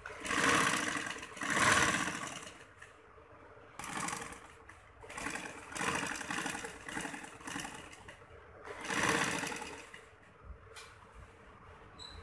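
Straight-stitch sewing machine running in several short runs with brief pauses between, sewing a long basting stitch along a lace-trimmed net edge.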